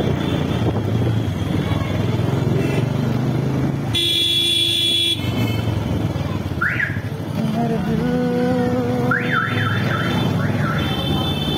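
Motorcycle engine running while riding. A horn sounds for about a second around four seconds in. A rising chirp comes near seven seconds, and a quick run of rising chirps follows from about nine to eleven seconds.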